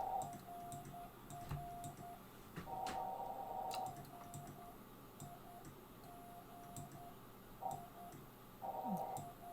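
Morse code on an amateur radio transceiver: a single steady tone keyed on and off in dots and dashes, with stretches of band hiss around it and a few faint clicks.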